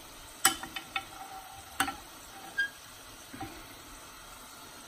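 Sharp clicks of a utensil against cookware, several in the first two seconds and a couple more later, over a faint steady sizzle of frying.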